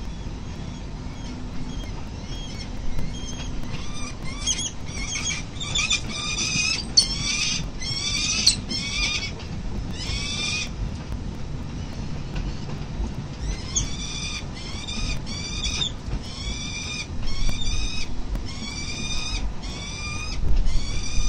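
Peregrine falcons at the nest calling: a run of harsh, down-slurred cries at a little over one a second. The cries break off about ten seconds in and start again a few seconds later.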